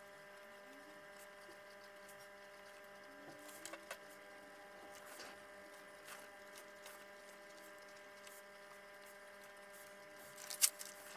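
Faint scratching and light ticks of a fineliner pen writing on notebook paper, with one sharper click near the end, over a steady low electrical hum.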